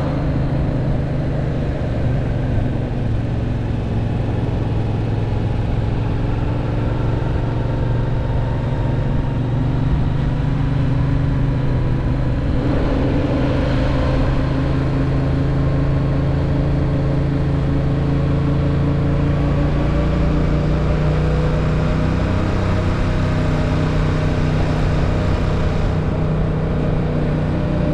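Yamaha MT-07's 689 cc parallel-twin engine running at a steady cruise with wind rushing past. The engine note shifts slightly about halfway through.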